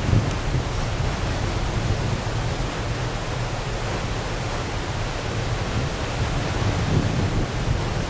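Steady rushing noise of wind and sea on the open deck of a moving ship, with a low rumble of wind buffeting the microphone.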